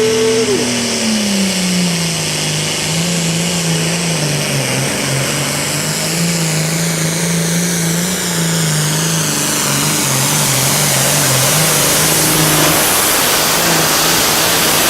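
Pulling tractor's engine, an International DT466 diesel enlarged to 640 cubic inches and rated at 700 horsepower, running flat out under load during a pull. The engine note sags over the first two seconds as it loads down, then holds and wavers.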